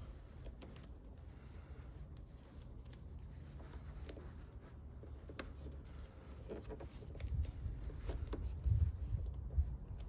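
Electrical tape being pulled off the roll and wound around the metal tailgate latch striker: scattered small rips and handling clicks over a low rumble that grows louder in the last few seconds.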